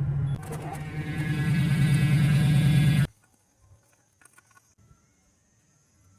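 Hummer H2's engine running, growing louder over about three seconds before cutting off suddenly.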